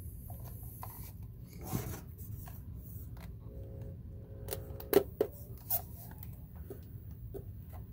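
Plastic handling noise from a Sharp JC-128 portable cassette player being turned over in the hands, with rubbing and a few sharp clicks about five seconds in as a 3.5 mm audio plug is pushed into its jack.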